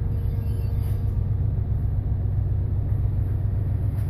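Steady low rumble of a ship's engine and hull vibration heard inside the bridge, even throughout with no change.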